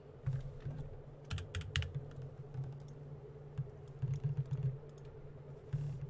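Typing on a computer keyboard: irregular runs of keystroke clicks, over a low steady hum.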